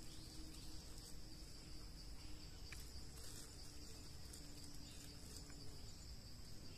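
Faint, steady high-pitched chirring of insects such as crickets.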